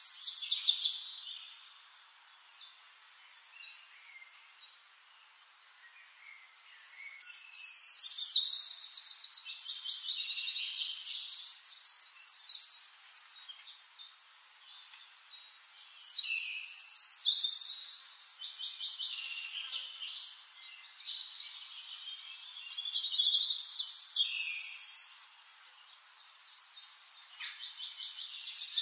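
Songbirds chirping and singing in rapid trills, in bursts with short pauses, fainter for the first few seconds; the sound is thin, with no low end.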